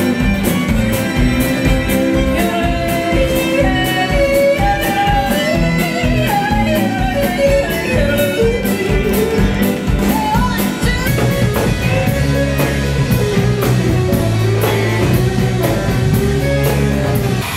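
Band music with a steady drum beat, guitar and a singing voice; deep sustained bass notes come in over the last few seconds.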